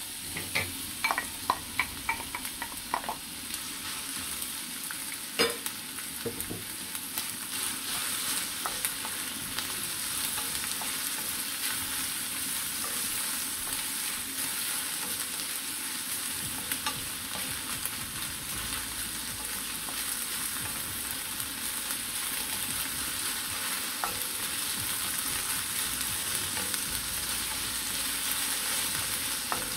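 Sliced onions frying in hot olive oil in a stainless steel pan, a steady sizzle as they are stirred with a wooden spatula. A few ringing taps in the first three seconds and a single sharp knock about five seconds in.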